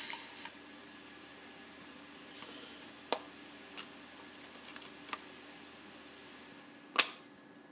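A few separate sharp clicks from a laptop's keys or buttons, the loudest near the end, over a faint steady hum.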